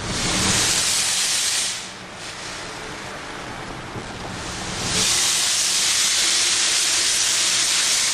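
Exhaust gas hissing from a hole pierced in a 1998 Mercedes E320's exhaust pipe while it is driven, loud for about two seconds, dropping back, then loud again for about three seconds. The hole relieves back-pressure from a disintegrated, melted catalytic converter that was blocking the exhaust.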